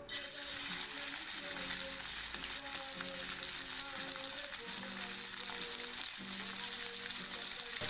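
Secreto ibérico pork sizzling in a hot frying pan, starting suddenly as the meat is laid in, then steady.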